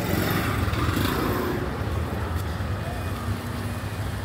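City street ambience: motor traffic running steadily, with voices of passers-by faintly in the background.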